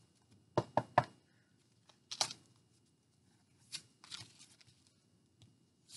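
Oversized El Goliath tarot cards being shuffled by hand, making short slaps and rustles of cards. There are three quick ones about half a second to a second in, then single ones around two seconds and nearly four seconds, with quiet gaps between.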